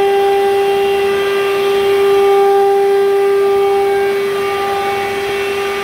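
CNC wood router's spindle running with a steady, unchanging high whine as its bit cuts grooves into a flat board, with a hiss of cutting underneath.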